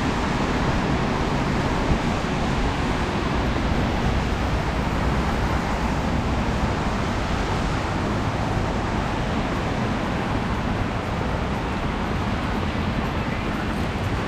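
Steady noise of busy city traffic on a wet road: tyres hissing on rain-soaked asphalt and engines passing continuously.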